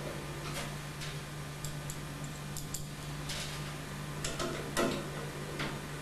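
Irregular small metallic clicks and ticks of screws being driven into the rear of a PC tower's outer steel cover, the loudest about five seconds in, over a steady low hum.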